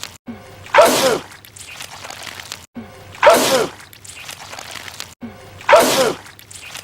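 A man sneezing loudly, the same sneeze repeated three times about two and a half seconds apart, each one a sudden blast of breath with a short voiced 'choo'.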